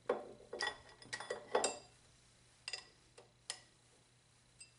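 Metal clinks and knocks as a steel vise jaw is set onto the mounting block of a Winn Speed Lock 6-inch milling vise. A quick run of ringing clinks comes in the first two seconds, followed by a few lighter ticks spaced out.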